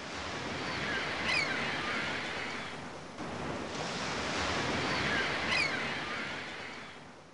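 Ocean surf washing onto a sandy beach, the rush swelling and easing twice, with a brief high chirp near the peak of each surge.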